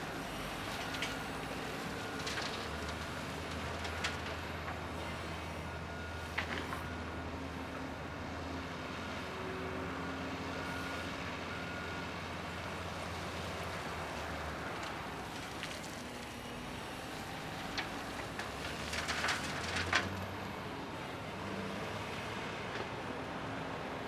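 Caterpillar D400E articulated dump truck's diesel engine running steadily at raised revs while the hydraulic hoist tips the body up to dump its load, the engine note dropping back about halfway through. Scattered knocks and a short burst of clatter near the end, with faint short beeps like a backup alarm.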